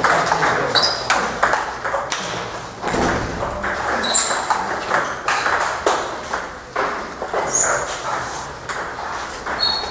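Table tennis balls clicking off paddles and tables, rallies at this table and at a neighbouring one, with a few short high squeaks scattered through.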